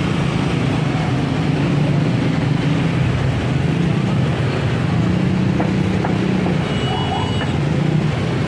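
Motor scooter engines running together in slow, packed traffic, a steady low drone.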